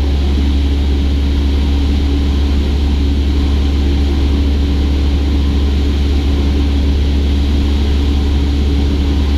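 Cessna 172's piston engine and propeller running steadily, a constant low drone heard from inside the cabin.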